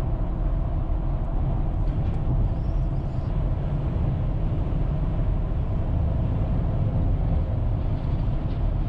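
Steady low rumble of a vehicle driving on a paved road, heard from inside the cabin: engine and tyre noise with no change in speed.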